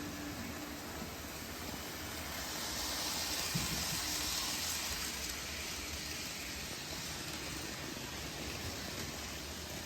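N scale model trains running on a layout: a steady hissing running noise that swells about three seconds in and eases off again.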